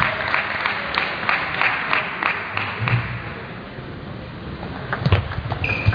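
Celluloid table tennis ball clicking off bats and table in a quick rally, about three clicks a second, fading to a quieter stretch and picking up again near the end. A short high squeak comes just before the end.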